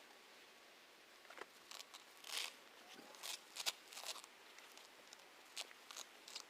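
Weeds and grass being pulled up by hand: faint, irregular crunching, rustling and tearing noises, a handful of short ones, thickest in the middle.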